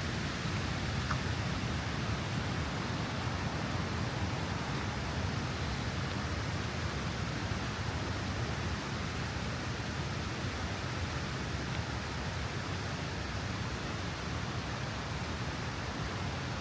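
Steady rushing of flowing water and rain, an even unbroken noise with a deep low rumble.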